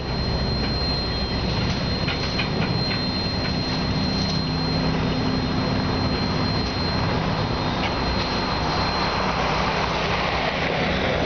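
Loram ballast train rolling slowly along the track, with a diesel locomotive engine's steady low drone, a thin high whine held throughout, and scattered clicks from the wheels. A broad hiss swells near the end.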